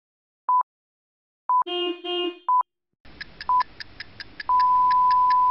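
Electronic beeps: a short high beep about once a second, with two short buzzy lower tones in between. Then rapid ticking starts, about four ticks a second, under one more short beep and a long steady beep held through the end.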